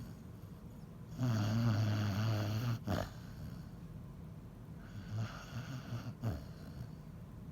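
Basset hound snoring in its sleep. One long, loud snore comes about a second in and ends in a sharp catch. Quieter snoring breaths follow, with another sharp catch near the end.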